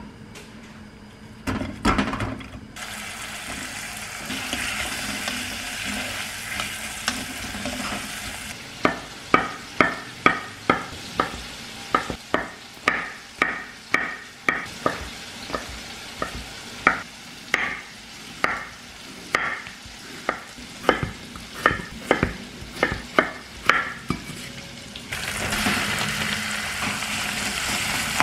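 Food sizzling in a pan, then a kitchen knife chopping shiitake mushrooms on a wooden cutting board, about two sharp knocks a second for some fifteen seconds. Near the end, minced pork and onions sizzle as they are stirred in the pot with a wooden spatula.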